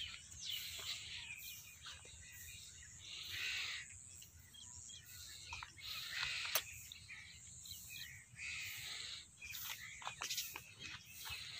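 Rural outdoor ambience: insects trilling high in a steady, even pulsing rhythm, with scattered short bird chirps and a few brief scratchy noises.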